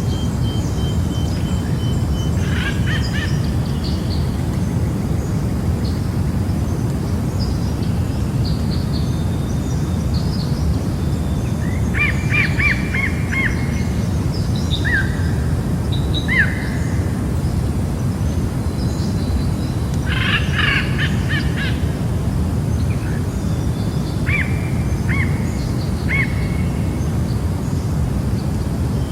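Jungle ambience: birds chirping, trilling and whistling at intervals over a steady low rush of noise.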